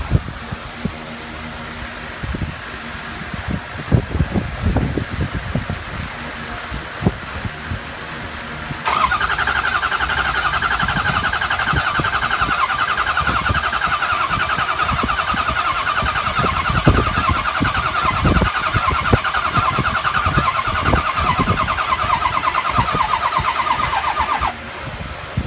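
Starter cranking a 2003 Ford 6.0L Power Stroke V8 diesel for about fifteen seconds, a steady whir with a fast, even pulse, without the engine catching: a no-start that persists with a new high-pressure oil pump. The cranking sets in suddenly about nine seconds in, after a few scattered knocks, and cuts off suddenly near the end.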